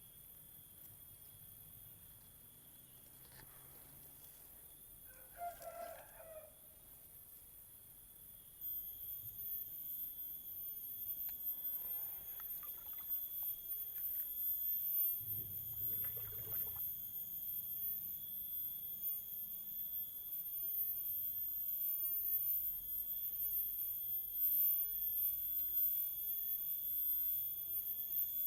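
A rooster crowing briefly in the distance about five seconds in. From about nine seconds on, a steady high-pitched tone rises to become the loudest sound, with a few faint knocks.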